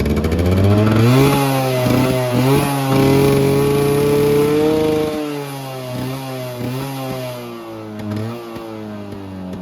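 Yamaha RX100's single-cylinder two-stroke engine being revved: the pitch climbs over the first second and holds high for about four seconds, then drops back around five seconds in and is blipped up and down a few times.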